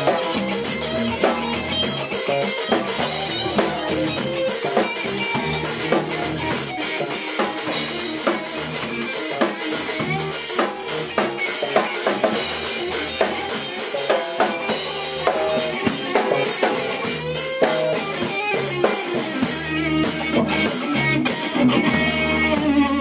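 A small band playing live: a drum kit keeps a steady beat with bass drum and rimshots under electric guitar.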